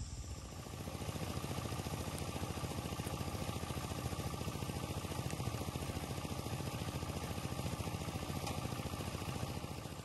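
Small engine-driven rice thresher running steadily while threshing, its engine giving a fast, even beat.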